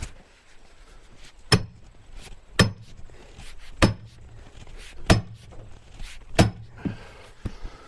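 Splitting maul hammering steel wedges into a black oak log: five hard, ringing metal-on-metal strikes about a second and a quarter apart, with a few lighter knocks between them.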